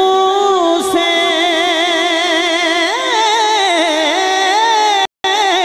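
A man singing a naat, an Urdu devotional poem, into a microphone. He draws out long, ornamented notes that waver up and down without breaking into separate words. The sound cuts out completely for a split second about five seconds in.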